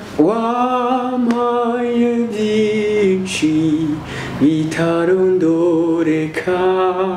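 A man and a woman singing a slow song together without accompaniment, holding long notes with a slight waver.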